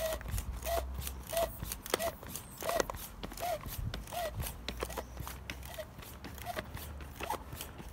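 Short, wide-barrelled Lidl foot pump being stepped on in steady strokes, about one and a half a second. Each stroke gives a short rising-and-falling note with a click as it pumps up a high-pressure road bike tyre.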